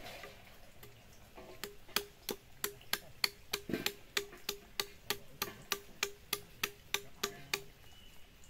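Rhythmic knocking, about three sharp strikes a second, each with a short low ring; it starts about a second and a half in and stops near the end.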